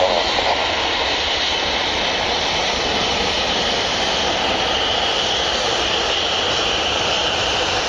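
Boeing 757 airliner's twin jet engines running as it rolls along the runway: a steady, even rushing noise with a faint whine, holding at a constant level.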